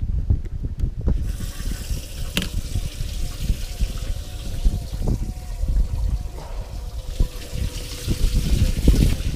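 Bass boat livewell pump spraying water into the livewell: a steady rush of water starts about a second in and stops near the end, over low thumps from handling and wind on the microphone.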